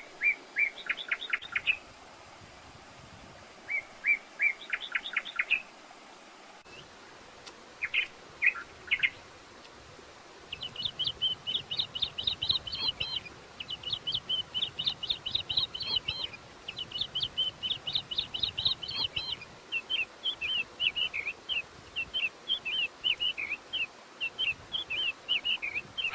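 Small birds chirping. A few short bursts of quick chirps come in the first nine seconds, then rapid, nearly unbroken chirping from about ten seconds in, over a faint steady hiss.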